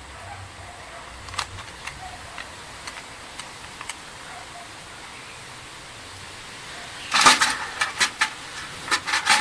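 Light metal clicks of a screwdriver tightening a small screw on a scooter starter motor's brush-holder end plate, then a run of louder metal clatters and knocks of the screwdriver in a metal parts tray about seven seconds in.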